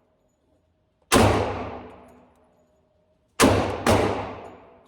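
.45 ACP pistol firing three shots: one about a second in, then two more in quick succession about half a second apart, each followed by a fading echo.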